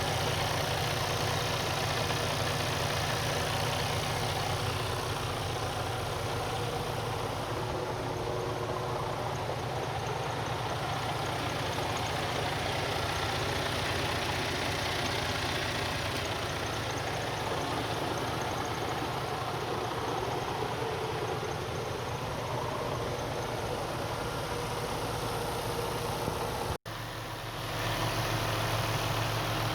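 Detroit Diesel DD15 inline-six diesel engine idling steadily. Near the end the sound cuts out for an instant, then the steady running picks up again.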